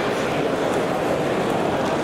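Crowd chatter: many people talking at once, a steady even hum of voices with no single speaker standing out.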